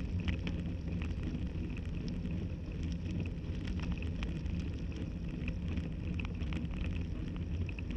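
Bicycle riding up a rough, gritty lane, heard through a handlebar-mounted camera: a steady low rumble of tyres and wind on the microphone, with many small ticks and rattles scattered throughout.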